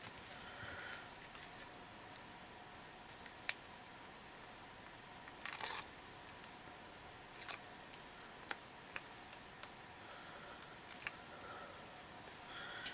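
Small craft scissors snipping paper now and then, with paper being handled: a few short, sharp snips and brief rustles spread through, the loudest rustle about five and a half seconds in.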